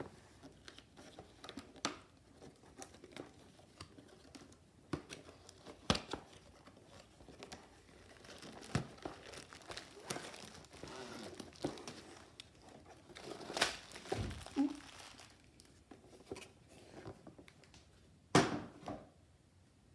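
Cardboard kit box being opened by hand and its contents slid out: scattered scrapes and taps of cardboard, with crinkling of plastic wrapping. A louder knock comes near the end.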